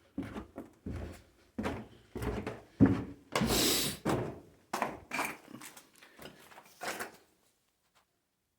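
Footsteps going down a flight of stairs: about a dozen thuds, roughly one every half second, with a brief scuffing scrape partway down, stopping about seven seconds in.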